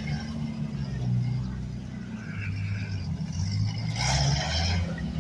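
Off-road vehicle's engine running and revving unevenly as it crawls up a rock garden, with a brief burst of noise about four seconds in.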